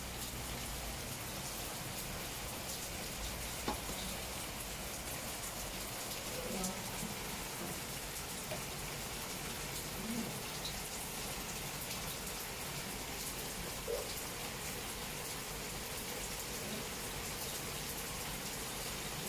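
Steady hiss of rain falling, with a few faint soft taps and rustles of dry leaves and paper being handled on a wooden floor.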